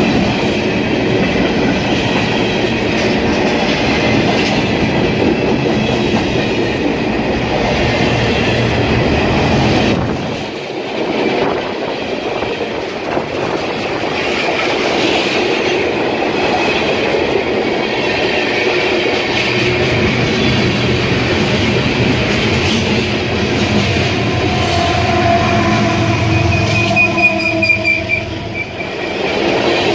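Cars of a CSX freight train rolling past at close range: steady wheel-on-rail noise with clickety-clack over the rail joints. A wheel squeals in a few high tones near the end.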